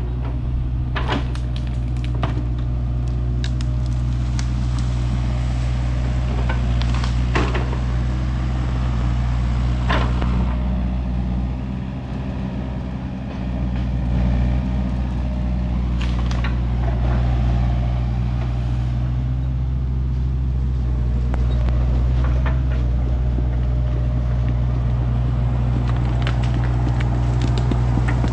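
Excavator's diesel engine running steadily under working load, easing briefly near the middle, with scattered short knocks and scrapes.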